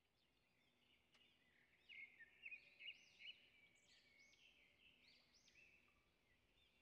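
Faint birdsong: a bird repeating quick, arching whistled notes, loudest about two to three seconds in.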